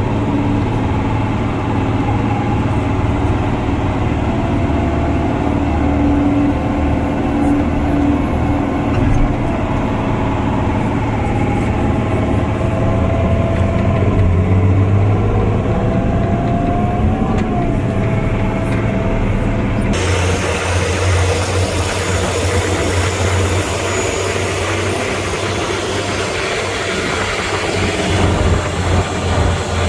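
Off-road dump truck's diesel engine running steadily as the loaded truck drives, heard from inside the cab with a low hum and cab noise. About two-thirds of the way through the sound changes abruptly, turning brighter with more hiss.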